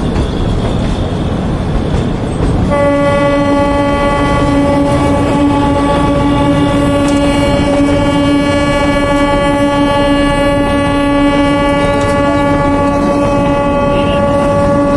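Narrow-gauge passenger train running, heard from inside a coach. About three seconds in, the locomotive's horn starts and is held on one steady note.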